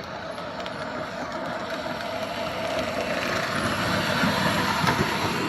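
A child's small drift vehicle running and sliding on pavement: a steady rumble of wheels and motor that grows gradually louder as it comes closer.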